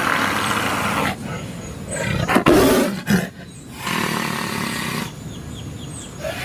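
Tiger roaring, loudest in a sudden roar about two and a half seconds in.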